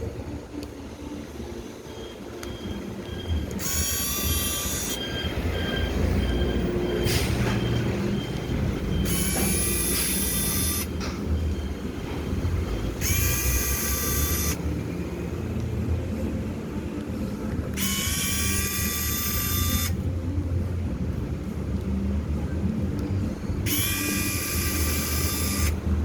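Battery-operated Tomica mini bus toy running: its small motor and gears make a steady low rumble. Five times, a high-pitched electronic sound plays for one to two seconds, about every four to five seconds.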